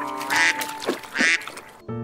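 Duck quacking twice, with background music underneath.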